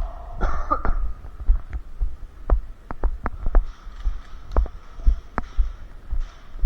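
A player's footsteps, walking or jogging with a body-worn camera, give deep thumps about twice a second, with sharp clicks and gear rattle between them. A brief voice sounds under a second in.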